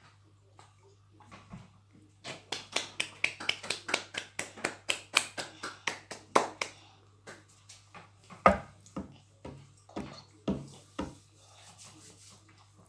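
Toddler sucking water from a plastic baby bottle's teat: a fast run of wet sucking clicks, about five a second, then slower scattered clicks with one sharper, louder click past the middle.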